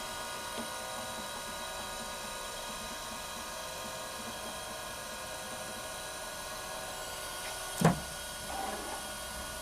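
Taft Peirce Model 200 surface grinder running, its spindle motor giving a steady hum with several steady tones. About eight seconds in there is a single sharp knock, followed by a short softer rattle.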